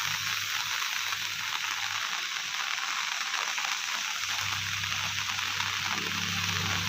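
Steady hiss of monsoon rain and running floodwater. A faint low hum underneath fades about two seconds in and returns later.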